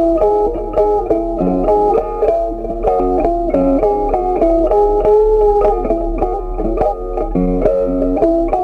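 Background music: a plucked guitar tune of quickly changing notes.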